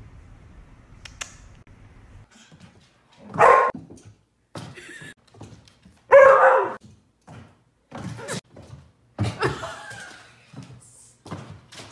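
A dog barking several times, the loudest barks about three and a half and six seconds in, with its claws clicking and thumping on a hardwood floor between barks.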